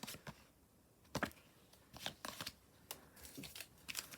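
Panini Adrenalyn XL football trading cards being handled and flicked through, a few soft clicks and rustles about a second apart.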